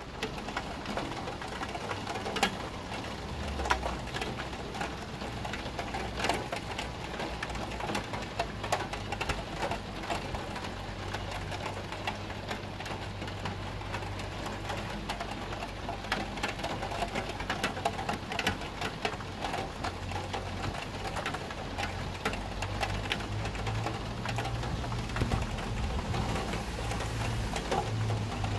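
Heavy rain falling, with a dense patter of drops hitting a nearby surface, over a low rumble that swells in the last few seconds.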